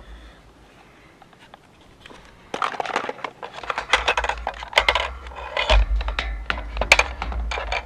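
Irregular plastic clicks, taps and rustling from hands working on a small FPV quadcopter's camera close to the microphone, with low rumbling bumps. It starts about two and a half seconds in and stops abruptly at the end.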